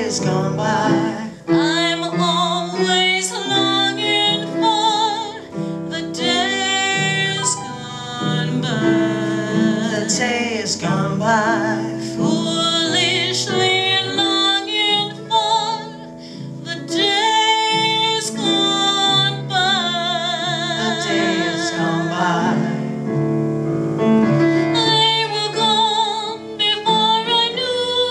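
A woman singing a 1920s-style jazz cabaret song with a wavering vibrato on held notes, accompanied by piano.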